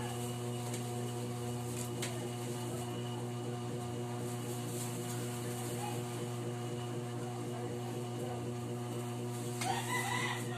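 Steady low hum throughout. Just before the end a louder sound, under a second long, comes as a plastic-wrapped llanera is set down into a stainless steel steamer.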